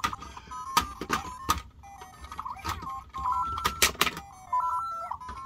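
Interactive LEGO Super Mario Peach figure's built-in speaker playing short electronic jingles and beeping sound effects that step up and down in pitch. Several sharp plastic clicks and knocks come through as the figure is hopped onto the bricks.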